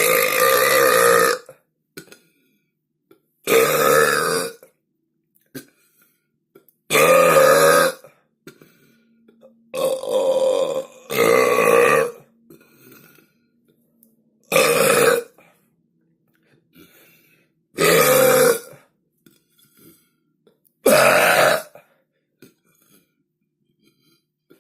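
A person belching loudly, about eight long voiced burps a few seconds apart, two of them back to back near the middle.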